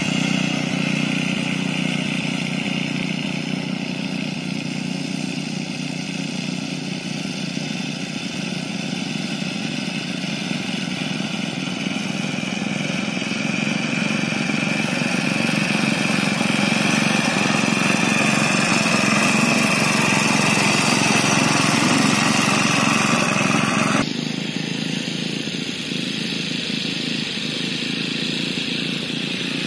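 Small engines of push rotary lawn mowers running steadily while cutting grass. About four-fifths of the way through, the sound drops suddenly to a quieter level.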